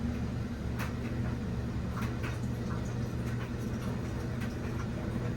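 Samsung FlexWash washing machine running: a steady low hum with water sloshing and scattered light clicks and knocks as the load tumbles.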